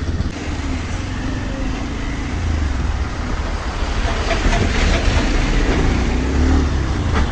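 A vehicle driving along a rough, unfinished road: a steady low rumble of travel noise with no clear events.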